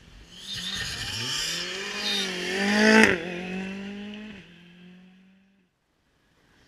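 Rally car passing at speed: the engine note climbs with a brief dip partway, peaks loudest about three seconds in as the car goes by, then drops suddenly in pitch and fades away.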